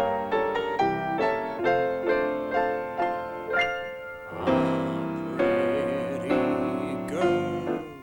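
Piano playing a song introduction in evenly spaced chords. About halfway through, a held melody line with vibrato joins it.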